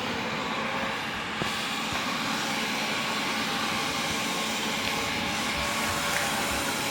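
Wyze robot vacuum running a cleaning pass with suction on the standard setting, a steady mechanical running noise that is a lot louder than in its quick-mapping mode.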